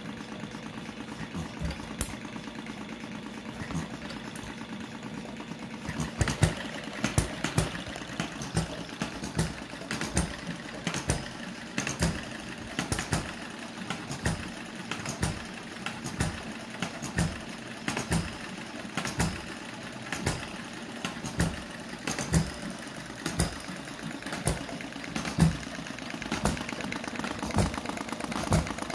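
Miniature model stationary engines running, a steady hum with sharp popping firing strokes that begin about six seconds in and come one or two a second, unevenly spaced.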